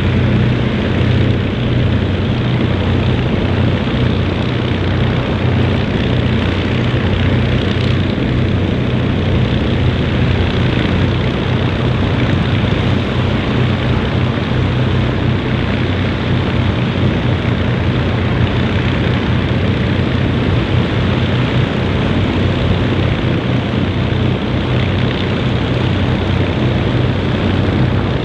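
Avro Lancaster's four Rolls-Royce Merlin V12 engines running together steadily on the ground at low power, propellers turning, with a deep even drone that does not rise or fall.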